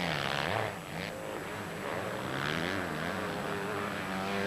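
Motocross bike engines revving up and down under race throttle, the pitch rising and falling again and again.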